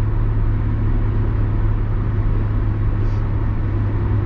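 Steady drone of a car cruising at about 70 mph in sixth gear, heard from inside the cabin: engine and road noise with a strong, even low hum.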